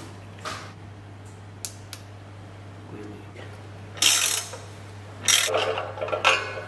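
Ratchet head of a digital torque wrench clicking in short rasping runs as it is swung back and forth to drive a fastener, the loudest run about four seconds in and several more near the end. A few light clicks come before that as a socket adapter is fitted onto the wrench head, over a steady low hum.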